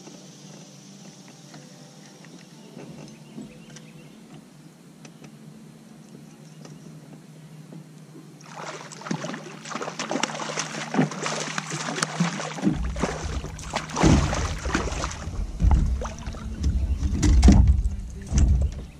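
A hooked catfish splashing and thrashing at the surface beside a kayak as it is reeled in, starting about halfway through. In the last few seconds come heavy low thumps as it is hauled up to the boat.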